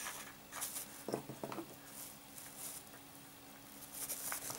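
Faint rustling and handling noises, in short scattered bursts, from hands working with plastic bags of groundbait and a spool of PVA thread, over a faint steady hum.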